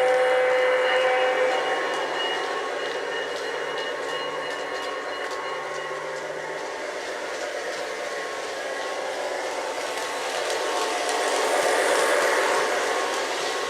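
Lionel O-gauge Alco S4 switcher running: its horn chord sounds and cuts off about a second and a half in, then the steady running noise of the locomotive on the track carries on and swells louder near the end.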